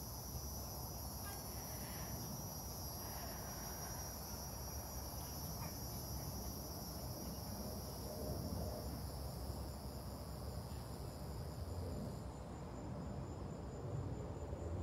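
Steady, high-pitched insect chorus that cuts off suddenly about twelve seconds in, over a steady low rumble.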